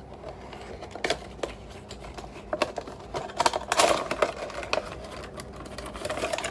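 A boxed Funko Pop vinyl figure being unpacked by hand: the cardboard box and plastic insert give scattered clicks and taps, with a denser stretch of rustling and scraping a little past the middle.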